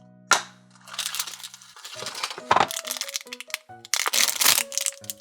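Plastic wrapping on an L.O.L. Surprise doll ball being crinkled and torn open in irregular crackles, over light background music.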